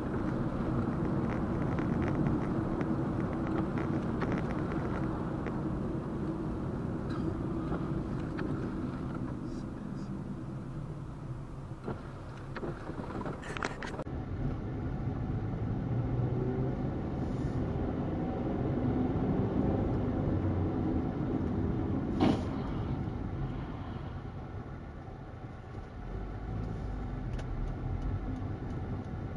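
Steady road and engine noise of a moving car, heard from inside the cabin, which changes character abruptly about halfway through. A single sharp bang comes about three-quarters of the way in.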